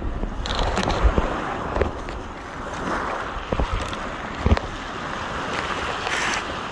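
Small waves surging up and washing back over a pebble beach, with wind buffeting the microphone. A few short sharp knocks come through the wash.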